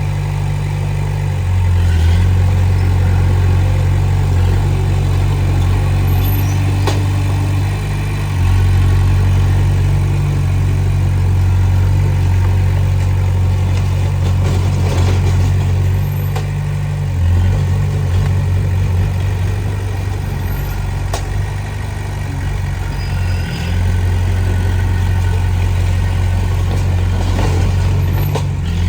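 Diesel engine of a Komatsu D20P crawler bulldozer running steadily, getting louder and then easing off several times as the throttle and load change.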